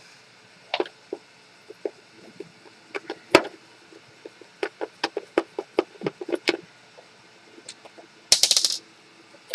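Irregular clicks and knocks of plastic parts and small hardware being handled while a small circuit board is taken out of a self-balancing scooter, with one sharper knock a few seconds in. Near the end comes a brief, rapid rattle of clicks.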